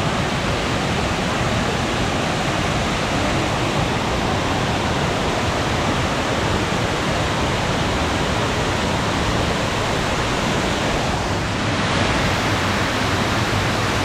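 Waterfall rushing: a steady, loud, even roar of falling water.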